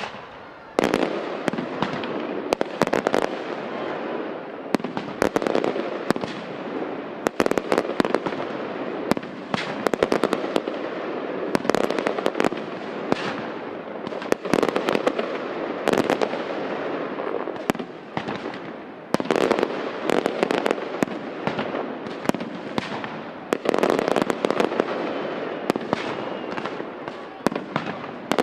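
Aerial fireworks display: many sharp shell bursts and bangs in quick succession over a constant crackle, starting abruptly about a second in.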